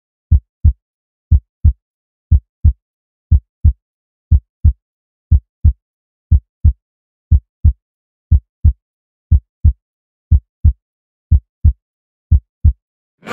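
Heartbeat sound effect: a steady lub-dub of paired low thumps, about one beat a second, with silence between beats.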